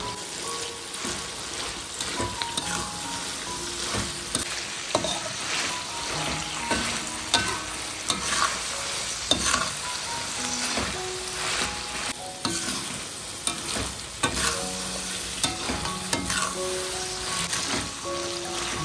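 Kung pao chicken being stir-fried in a hot pan: steady sizzling, with the spatula scraping and knocking against the pan as the food is tossed.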